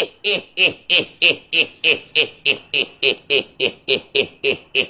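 A man laughing in a steady run of short 'ha' pulses, about three a second, each dropping in pitch.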